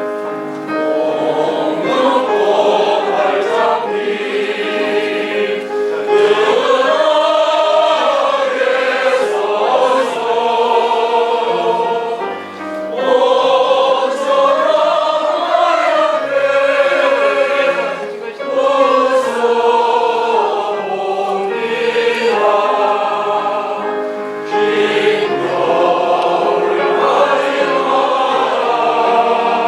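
A group of voices singing a Korean art song (gagok) together in phrases, with piano accompaniment.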